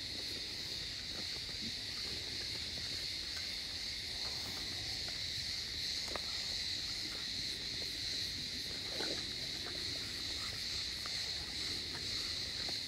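Steady, high-pitched chorus of insects, with a few faint short clicks and small sounds from Doberman puppies eating at their bowls.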